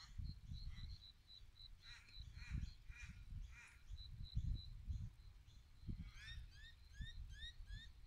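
Birds calling in the background: a steady run of high chirps, several harsh, caw-like calls, and a quick series of short whistled notes near the end, over a low, uneven rumble. The boxing kangaroos themselves are not heard.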